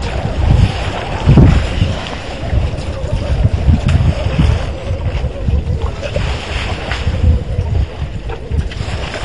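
Wind buffeting an outdoor microphone, a low uneven rumble that surges and falls in gusts.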